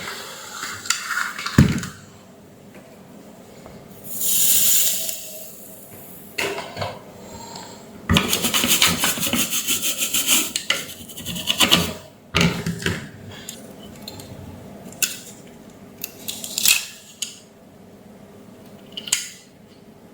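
Clinks, knocks and clatter of tools and small metal parts being handled on a workbench, with a brief hiss about four seconds in and a fast rattle from about eight to twelve seconds in.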